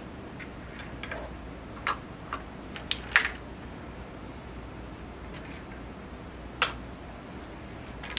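Wooden crokinole discs flicked across a crokinole board, clacking sharply against other discs and the board. The clicks come singly and in small clusters over the first few seconds; the loudest is about three seconds in and another sharp one comes near seven seconds.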